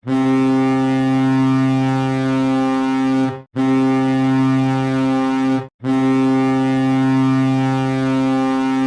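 Ice hockey goal horn sounding three long, steady blasts at one low pitch, each cut off sharply. The first and last blasts last about three seconds and the middle one a little over two.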